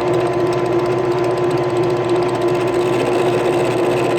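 Drill press running with a steady hum as it cuts slots into a galvanized steel Simpson strap tie.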